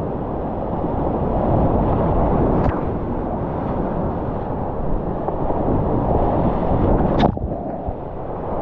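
Whitewater rushing around a kayak as it runs a granite slide rapid, heard close from a camera on the boat, with a low rumble of wind and water on the microphone. Two brief sharp knocks, about three seconds in and near the end.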